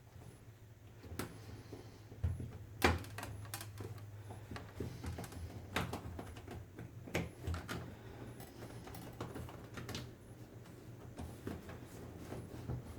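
Scattered clicks and taps of hands working the rubber door boot of a front-load washing machine back around the lip of the cabinet opening, about five sharper knocks among them, over a low steady hum.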